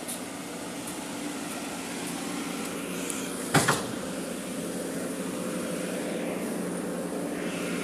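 JCB tracked excavator's diesel engine running steadily under load as the machine climbs onto a truck bed, slowly growing louder. About midway there is a sharp, loud double knock.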